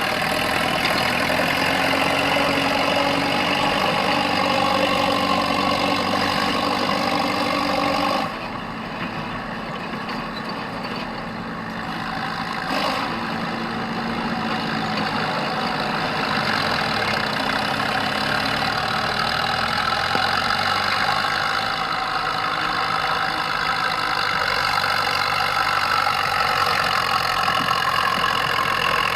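A motor vehicle engine running steadily. About eight seconds in, the sound drops abruptly to a quieter, duller running sound, which then slowly grows louder again.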